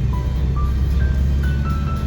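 Background music: a simple melody of single held notes, stepping up and down, over a steady low rumble.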